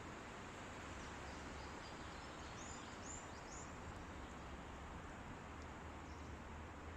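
Wind blowing steadily through forest trees, a soft even rush. A small bird sings a few short, high notes about three seconds in.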